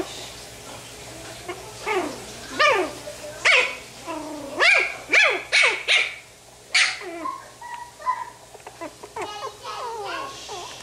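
Pomeranian puppy yapping: a run of short, high-pitched barks that each drop sharply in pitch, most of them between about two and seven seconds in, followed by fainter, shorter sounds.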